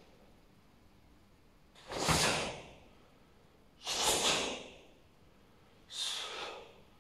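Forceful karate breathing during the kata Seisan: three sharp, hissing exhalations about two seconds apart, each fading out, timed with the slow opening hand techniques.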